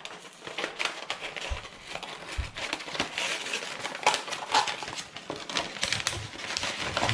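Tissue paper rustling and crinkling as it is pulled open by hand inside a cardboard box, a continuous run of irregular small crackles.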